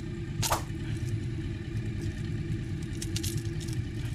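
Outboard motor running with a steady low rumble, with a few short metallic clicks and scrapes from pliers working a fishing lure's hooks free of a snook's mouth, once about half a second in and again around three seconds in.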